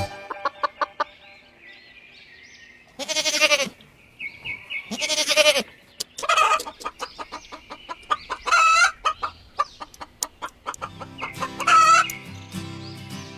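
Chickens clucking and squawking: five loud, short calls spread through the stretch, over faint background music with a clicking rhythm.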